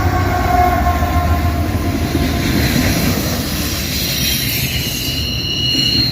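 Freight cars of a long intermodal train rolling past with a steady rumble of wheels on rail. From about four seconds in, high steady wheel squeal rings over the rumble and grows stronger.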